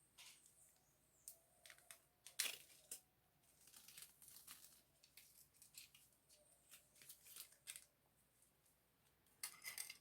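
Faint scratchy rustling and scraping from hands working at a window screen, in short irregular bursts, loudest about two and a half seconds in and again near the end.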